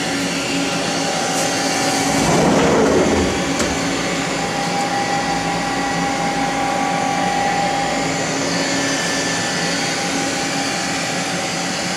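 Hardinge GT27 CNC lathe running, a steady mechanical hum and whine with several held tones, swelling louder briefly about two to three seconds in.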